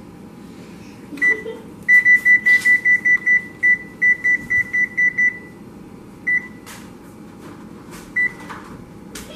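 Electronic oven control panel beeping as its buttons are pressed to set the oven: a single beep, then a quick run of about a dozen beeps at roughly four a second, then two more single beeps a couple of seconds apart.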